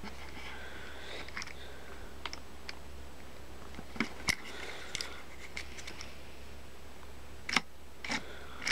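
Small plastic toy railway signal being handled and switched: scattered sharp plastic clicks and taps, a few louder ones near the middle and near the end, over a low steady hum.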